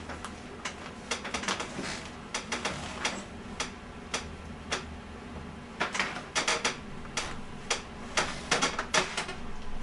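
Irregular clicks and clinks of small metal hardware being handled during assembly, some coming in quick clusters, over a steady low hum.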